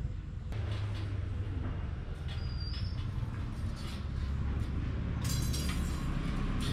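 Low steady rumble with a brief high squeak, then a quick run of light metallic clicks and rattles about five seconds in as a macaque clambers along a metal clothes-drying rack hung with wire hangers.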